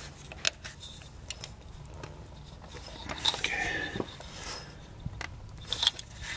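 Scattered small clicks and knocks of a snug variable valve timing solenoid being wiggled by hand in its bore on a 2008 Hyundai Sonata 2.4 engine. A longer scraping rustle comes between about three and four and a half seconds in.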